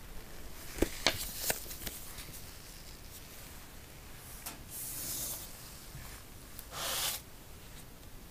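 Paper leaflet being handled, with a few crisp crinkles and snaps about a second in. Then two soft swishes, one near the middle and one just before the end, as gloved hands move smartphones on a table.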